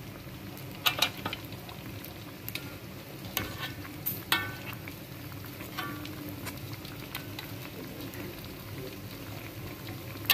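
Mantao dough buns deep-frying in oil in a wok, a steady sizzle. Metal tongs clink sharply against the wok a handful of times as the buns are turned, each clink ringing briefly.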